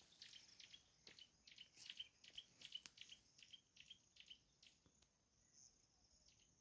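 Near silence with faint chirping: a run of short, high chirps, a few a second, that dies away a little past halfway.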